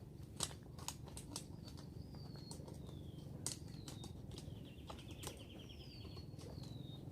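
A small bird calling outdoors: several short, high whistled notes that slide downward, and a brief trill a little past the middle. Scattered faint clicks or taps and a low steady background hum run underneath.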